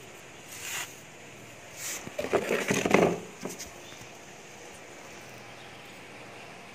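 Rustling and scraping from hands handling a small dendrobium orchid cutting with moss at its roots. It comes in two bursts, a short one early and a louder, crackly one about two to three seconds in, over a low steady hiss.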